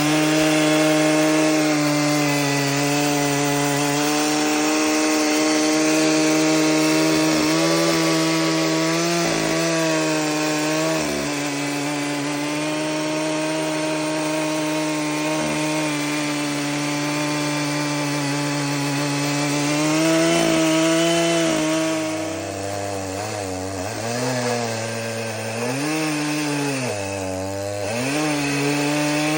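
Chainsaw running at steady high speed under load as it rips a maple log lengthwise in an Alaskan chainsaw mill. The engine pitch dips briefly a couple of times. In the last several seconds the engine speed falls and rises again about four times.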